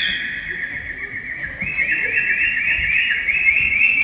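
High-pitched, bird-like chirping: a rapid, overlapping run of chirps repeating about four times a second, getting denser and louder after the first second and a half.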